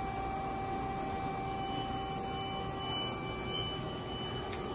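Mori-Seiki NH 5000 DCG horizontal machining center running with a steady hum and a thin whine. The whine stops with a soft click near the end, and a fainter, higher tone comes and goes in the middle.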